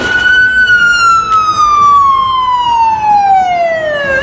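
Police car siren on a slow wail: one long tone falling gradually for about four seconds, then sweeping quickly back up near the end.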